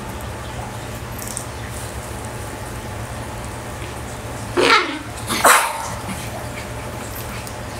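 A dachshund barks twice in quick succession, about a second apart, during rough play with another dachshund.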